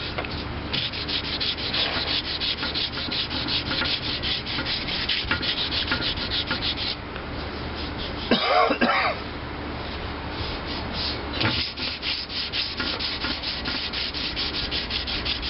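Sandpaper rubbed by hand over primer and spot putty on a metal part, in rapid back-and-forth strokes. The strokes pause briefly about seven seconds in, and a cough follows just after.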